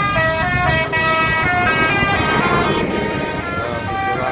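Tour bus's 'telolet basuri' multi-tone musical horn playing a quick melody of short stepped notes, over road and engine noise.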